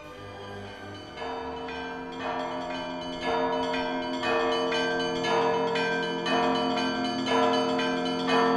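Church bells ringing, a new strike about once a second with each tone hanging on, growing louder. They start about a second in, after a faint held musical tone fades.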